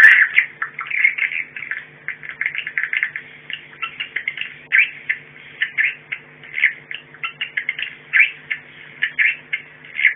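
Swiftlet call, a 'warning sound' type, played as a lure recording: rapid, irregular high chirps and twitters in dense clusters. A faint steady low hum runs underneath.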